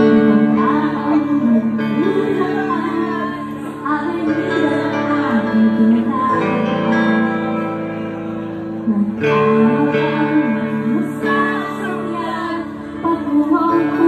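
Live amplified pop-rock song: a woman singing over electric guitar, with sustained chords underneath. Just past the middle the chords break off briefly and come back in.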